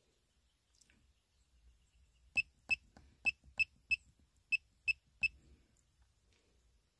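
Handheld OBD2 diagnostic scanner beeping at each button press: about eight short, high beeps in quick, uneven succession over some three seconds, as its menus are stepped through.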